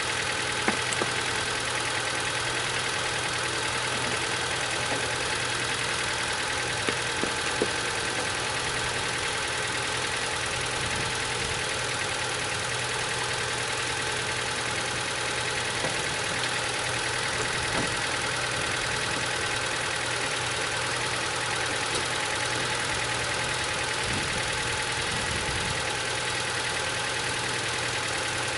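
1991 Ford Festiva's four-cylinder engine idling steadily. The cooling system has just been refilled and the engine is warming up so the new thermostat opens and trapped air bleeds out.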